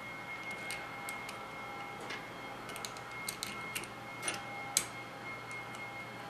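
Irregular light clicks and taps of small metal Weber 42 DCNF carburettor parts and hand tools being handled during reassembly, the sharpest about three-quarters of the way through. A faint steady high-pitched tone runs underneath.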